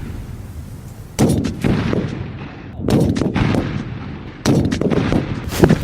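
Battle sound effects of gunfire: three heavy blasts about a second and a half apart, each with a rumbling tail that fades.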